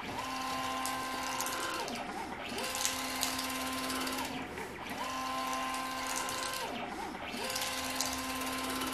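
Stepper motors of a belt-driven CNC gantry whining as the axes move back and forth. Each move is a tone that rises as the carriage speeds up, holds for about a second and a half, then falls as it slows, four moves in all. Under the whine a paintbrush on the tool head scrubs the concrete floor with a steady bristly scraping.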